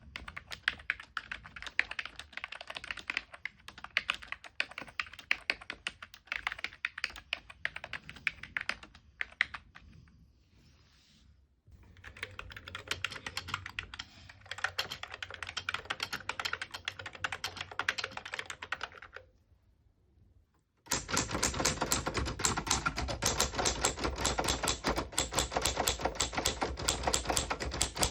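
Typing on three different keyboards in turn, rapid key clicks with short breaks between them. The last and loudest stretch, from about three-quarters of the way in, is a denser, heavier clatter of keys.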